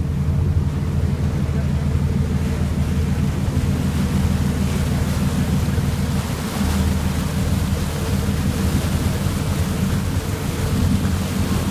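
Boat engine running steadily with the boat under way, a constant low drone, over the rushing water of the churning wake.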